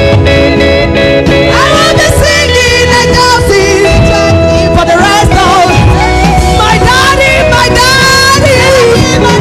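Worship music with singing: a voice sings long, bending phrases over sustained instrumental chords and a steady bass.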